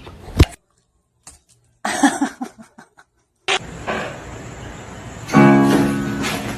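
Music in short snippets, cut apart by gaps of dead silence. The loudest part is a held pitched note that starts about five seconds in and slowly fades.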